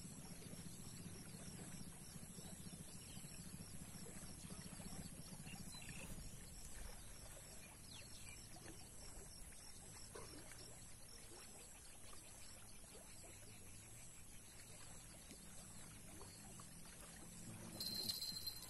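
Faint streamside ambience: quiet flowing water, with a low hum in the first few seconds and a brief louder sound near the end.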